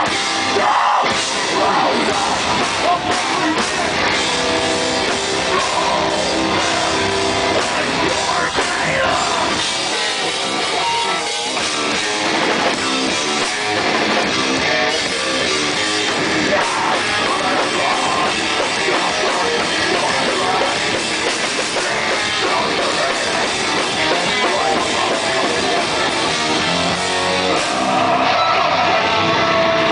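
A live rock band playing loudly: electric guitar, bass guitar and drum kit.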